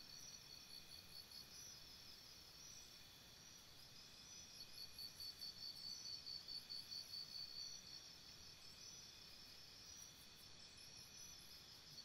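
Faint insect chorus: several insects chirping on steady high pitches in quick regular pulses, about four or five a second, the pulsing less marked in the middle.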